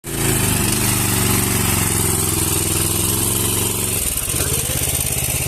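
Yamamoto 28 hp engine driving a 4-inch portable fire pump, running steadily under test; about four seconds in its note drops to a lower, slower beat and settles there.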